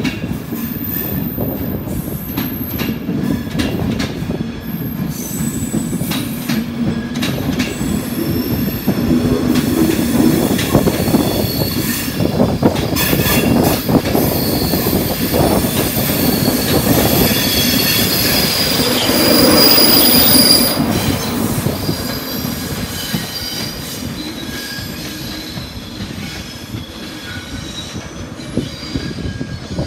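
Electric express passenger train running past, a steady rumble of wheels on rail with high-pitched flange squeal from the wheels on curved track. It grows louder to a peak about two-thirds of the way through, then fades.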